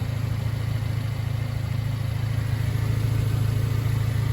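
1999 Subaru Sambar mini truck's four-cylinder engine idling steadily with a low, even hum.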